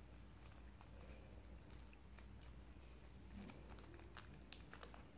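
Near silence, with faint scattered clicks and rustles of origami paper being folded and creased by hand.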